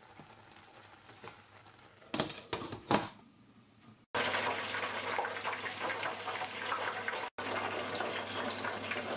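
A glass lid set onto a stainless steel pot with a few light clinks about two to three seconds in. From about four seconds in, eggplant cubes sizzle steadily in the hot oil of a deep fryer basket.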